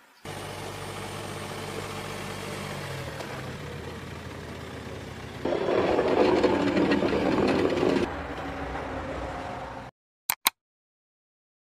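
Passenger train running directly over the camera on the track: a steady low hum under wheel rumble and rattle, louder for a few seconds past the middle, ending in a sudden cut. Two short electronic blips follow near the end.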